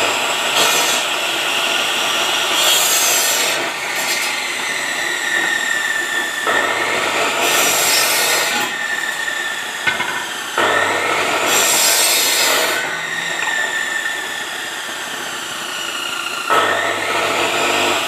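Maktec cut-off saw cutting green bamboo tubes into short lengths, over and over. The motor whine starts up with a jump several times and slowly sags between cuts. Each cut through the bamboo is about a second of loud rasping.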